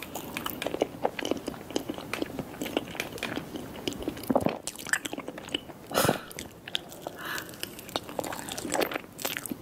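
Close-miked eating sounds of a soft brain-shaped cake glazed in red cherry sauce: a fork working into the cake, then wet chewing and mouth sounds as a spoonful is eaten. It comes as a run of small clicks and smacks, with a louder one about six seconds in.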